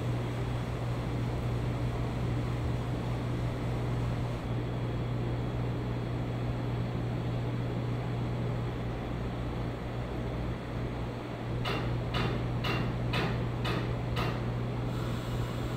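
A steady low machine hum, with a quick run of about six clicks, two or so a second, near the end.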